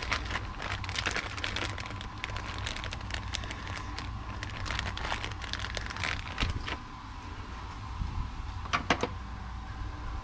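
Thin plastic bag of PCR tubes crinkling and crackling as gloved hands rummage through it, busiest for the first seven seconds. Two sharp clicks come close together near the end.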